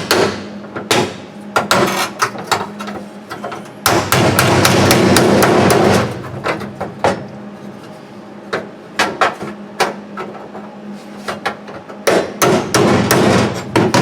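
Hammer tapping a steel patch panel into shape: irregular strikes, with a quick run of blows near the end. About four seconds in, a steady rasping noise lasts about two seconds.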